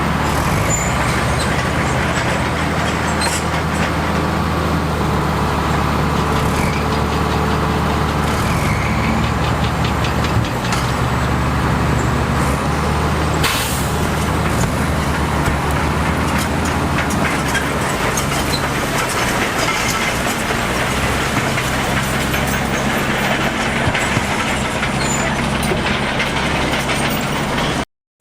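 Diesel engines of heavy earthmoving machines running steadily under load, with a dense clatter over them and one sharp crack about halfway through. The sound breaks off for a moment near the end.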